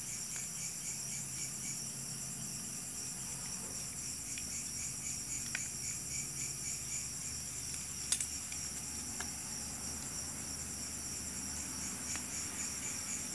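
Steady background chorus of insects chirring, a fast pulsing trill, with a couple of faint sharp clicks about halfway through.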